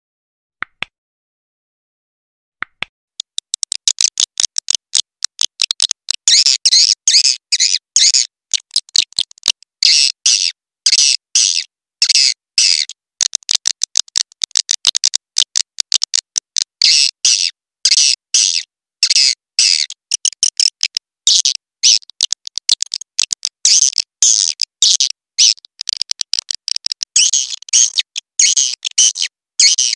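Edible-nest swiftlets twittering in a fast, dense run of short, high chirps and clicks: a swiftlet call recording of the kind played to lure the birds into a swiftlet house. It starts about three seconds in, after a near-silent opening with a single click.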